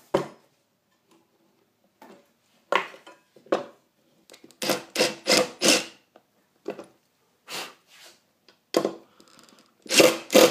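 Cordless drill boring pilot holes into a steel drawer slide, run in a dozen or so short pulses of the trigger with brief pauses between.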